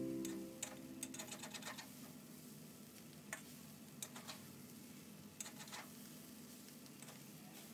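A spatula knocking and scraping against a wok as noodles are tossed: faint, light clicks, a quick cluster about a second in, then single taps every second or so.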